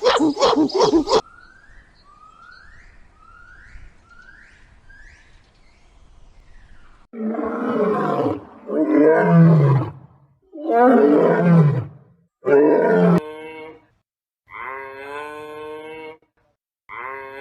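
A string of farm animal calls joined by hard cuts. A second of fast rhythmic pulsing gives way to five faint rising chirps. From about seven seconds in come four loud, rough calls that slide down in pitch, and in the last few seconds steadier, higher calls.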